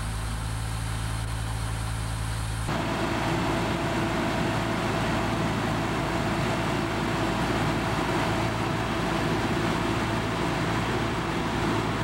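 The engine of a REED A30HP trailer-mounted concrete pump runs steadily while it pumps pea-gravel concrete. About three seconds in the sound switches abruptly to a louder, rougher engine noise with a steady whine, from the pump and a concrete mixer truck discharging into its hopper.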